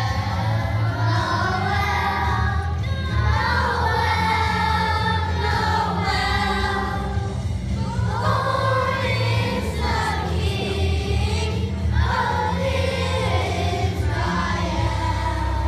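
Children's choir of first graders singing a Christmas song together over a steady low musical backing.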